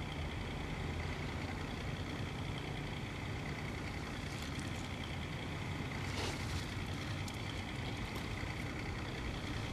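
Steady low rumble of distant motor engines, with a faint even hiss above it. A brief falling sound comes about six seconds in.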